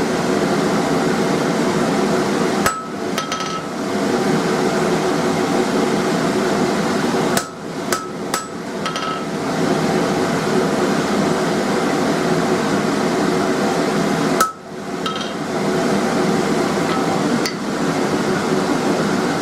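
Hand hammer striking a hot square steel bar on an anvil, forging a chisel-point taper, in steady repeated blows broken by a few short pauses. A steady mechanical hum runs underneath.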